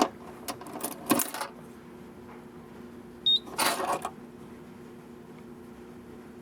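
Clicks of buttons being pressed on a fire alarm annunciator to reset the system, then a single short high-pitched beep about three seconds in, followed by a brief rustle. A steady low hum runs underneath.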